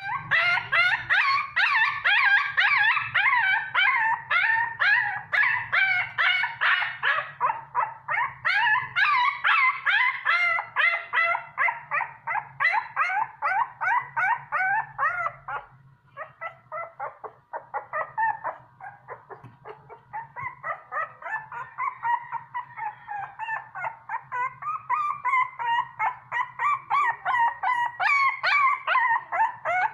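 A young puppy crying: a steady run of short, high-pitched whimpering yelps, two to three a second. The cries break off briefly about halfway through, then go on a little quieter.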